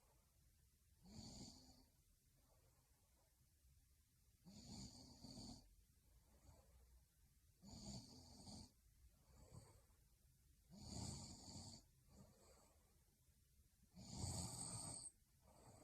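A young woman snoring in her sleep: five snores about three seconds apart, with fainter breaths between them.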